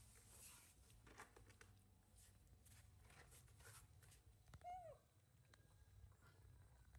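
A baby macaque gives one short, high call that falls in pitch, about two-thirds of the way through. Before it come faint rustles and crackles from peanuts being shelled by hand.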